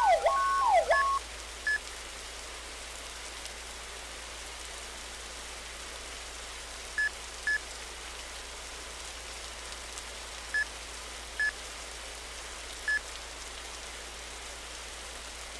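Ladder truck's siren sweeping rapidly up and down, cutting off about a second in. After it, a steady hiss with six short high beeps, spaced irregularly.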